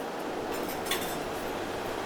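Café terrace ambience: a steady background hubbub with a light clink of tableware about a second in.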